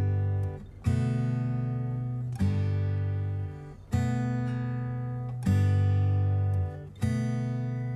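Background music on acoustic guitar: chords strummed about once every second and a half, each ringing out and fading before the next.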